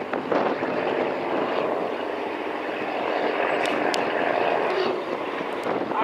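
Engine of a small dock boat running hard as it pushes a ship against the quay, a steady drone mixed with strong wind on the microphone.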